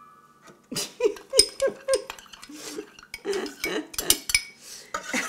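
Metal spoon scraping and clinking inside a small glass bowl, a quick run of clinks, as the last of the melted butter and sugar water is scraped out into a stand mixer's steel bowl.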